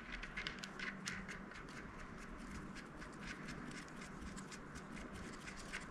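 Faint, irregular small metallic clicks and ticks as a nut is threaded by hand onto a bulkhead fitting through a transmission case.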